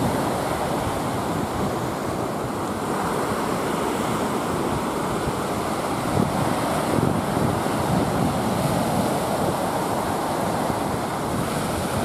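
Small waves breaking and washing up over a sandy beach: a steady rush of surf.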